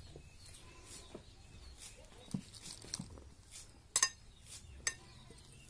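Hand mixing flour and water in a bowl, with a few scattered sharp clinks; the loudest is a quick double clink about four seconds in.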